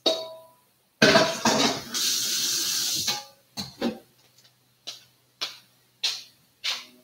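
Kitchen cookware being handled: a loud clatter of pots and utensils about a second in, a second of steady rushing noise, then a string of separate clinks and knocks.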